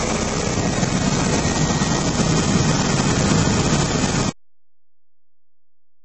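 Lada Kalina heater blower fan running at high speed: a steady rush of air from the dashboard vents with a low hum under it. It cuts off suddenly about four seconds in.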